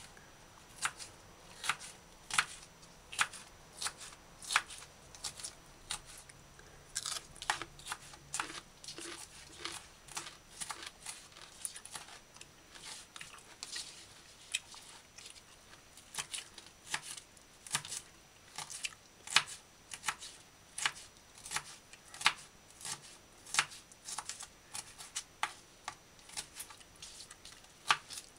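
Chef's knife dicing green bell pepper on a plastic cutting board: sharp, separate chops, about one or two a second, with a quicker run of cuts about a quarter of the way in.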